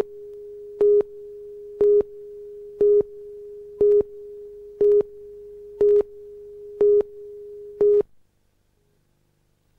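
Videotape countdown-leader tone: a steady mid-pitched tone with a louder beep once a second as the countdown clock ticks down, nine beeps in all, cutting off about eight seconds in.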